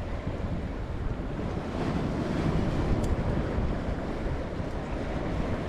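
Sea surf washing steadily on the shore, with wind buffeting the microphone; a faint click about three seconds in.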